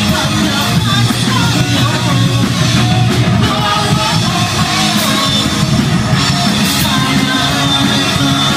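Hardcore punk band playing live: loud distorted electric guitars, bass guitar and a drum kit, with a vocalist singing into the microphone.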